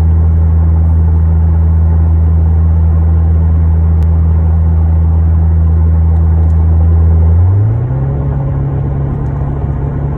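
Car engine and road noise heard inside the cabin while driving: a steady low drone that rises in pitch about seven seconds in and then holds at the higher pitch.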